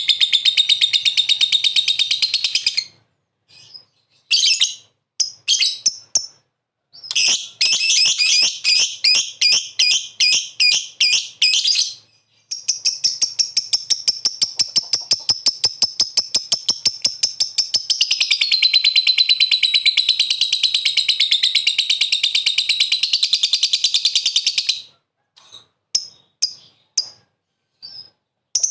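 Lovebird giving its long, rapid chattering song (ngekek): high, fast-pulsed trills in long runs, the longest lasting about twelve seconds, broken by short bursts and pauses.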